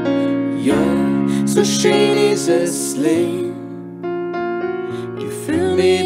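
Music: keyboard chords, piano or electric piano in sound, with a melody line over them that slides up into its notes.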